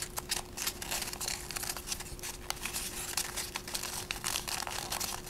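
A large sheet of origami paper crinkling and rustling as fingers press and fold it into an open sink, with many small irregular crackles.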